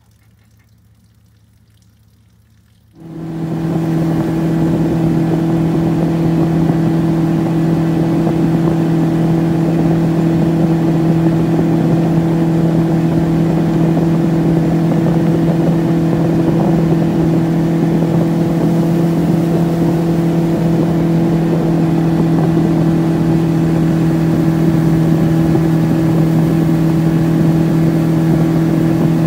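Outboard motor pushing a small boat along at a steady cruising speed, one even, unchanging hum. It comes in about three seconds in after a few seconds of quiet.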